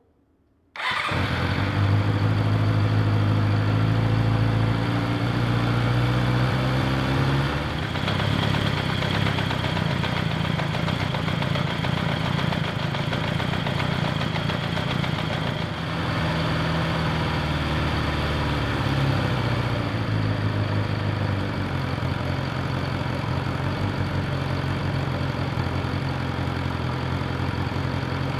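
Kawasaki Zephyr's air-cooled inline-four motorcycle engine firing up about a second in and running steadily, its note dropping a little around eight seconds in and shifting slightly again later on.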